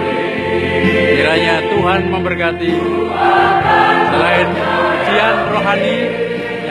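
Mixed choir of men and women singing in harmony, with long held notes.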